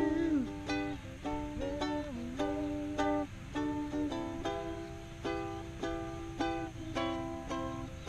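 Ukulele strummed in a steady rhythm, moving through a chord progression.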